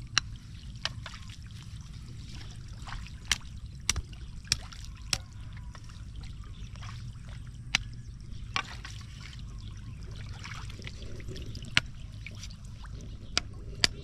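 Pond water trickling and sloshing as bamboo stakes are set into a shallow pond. About a dozen sharp clicks and knocks come at irregular moments over a steady low rumble.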